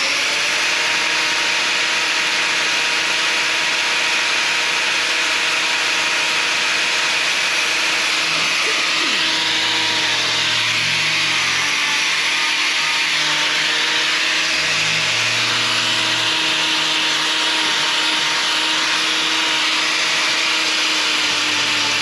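Handheld power tool, likely an angle grinder of the kind used for cow hoof trimming, running steadily at full speed.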